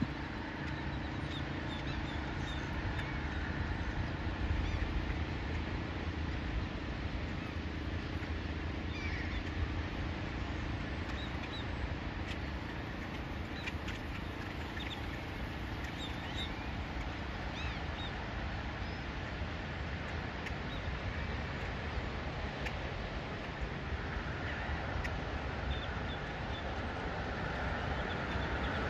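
Outdoor dawn ambience: a steady low rumble and hiss, with scattered short bird calls, most of them in the middle stretch.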